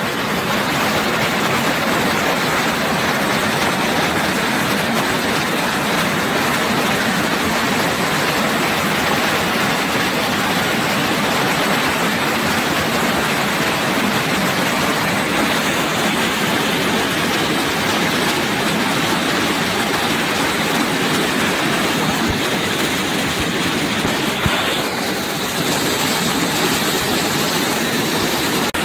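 Waterfall rushing: a steady, loud noise of falling water with no break.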